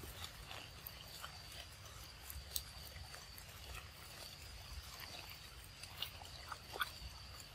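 Baby macaque sucking a drink through a straw from a small carton: faint slurps and small clicks, over a steady high-pitched whine in the background.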